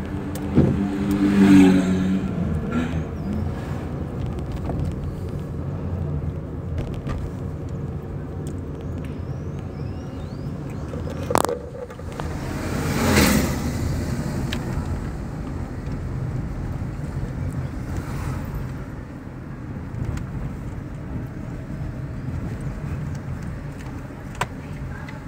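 Car interior cabin noise while driving: a steady low engine and road rumble. A sharp knock sounds about eleven seconds in, followed by a brief swelling rush.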